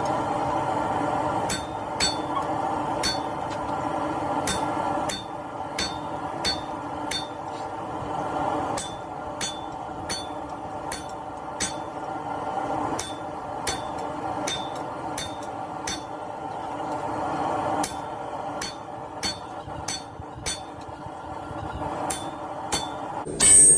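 Hand hammer striking a blunted chisel used as a fuller on hot steel round stock: sharp metallic blows with a short ring, about two a second in runs with brief pauses. A steady hum runs underneath.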